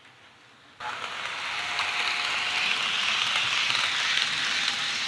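HO-scale model freight train of Walthers flat cars on newly fitted steel wheels rolling past close by on metal track: a steady rushing hiss of wheels on rail that starts suddenly about a second in and holds, with a faint steady tone underneath. It is running nice and smooth.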